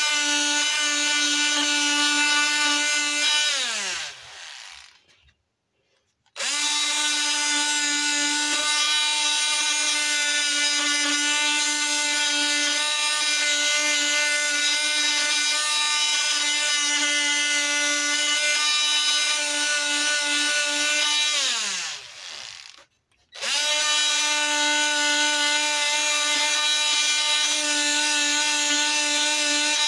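High-speed electric motor of a small handheld power tool used on carved wood, running at a steady pitch. It is switched off and winds down with a falling whine about four seconds in, starts again about two seconds later, then winds down once more around twenty-two seconds and is restarted about a second after.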